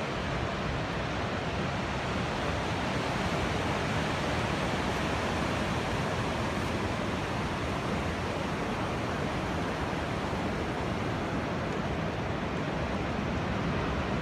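Ocean surf breaking on a beach: a steady, even wash of noise.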